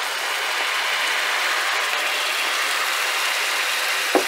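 Stock poured into a hot stainless-steel sauté pan of fried onions and tomato paste, sizzling and bubbling steadily as it deglazes the pan. A single sharp knock comes about four seconds in.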